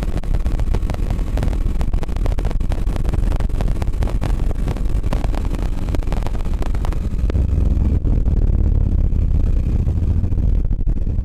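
Steady low roar of wind buffeting and tyre and road noise at a bumper-mounted camera on a 1992 BMW 325i sedan driving at track speed, with constant crackling buffets over it.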